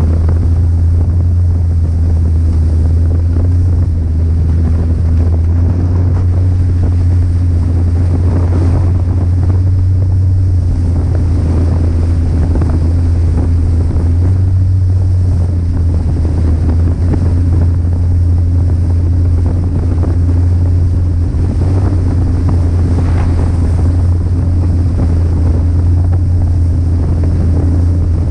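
Snowmobile engine running at a steady speed, with wind buffeting the microphone.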